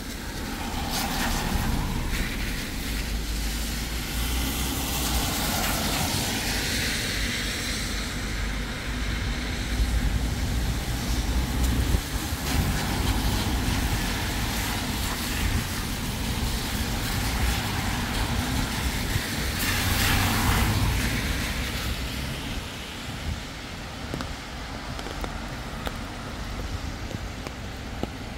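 Road traffic on a rain-soaked street: several vehicles pass, each a rising and fading hiss of tyres on wet asphalt, over a steady low engine rumble and falling rain.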